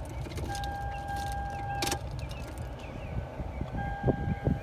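2005 Toyota Camry being switched on to test a newly plugged-in blower motor: a steady electronic tone that ends in a sharp click about two seconds in, over a steady low rumble. The tone sounds again near the end, with two low knocks.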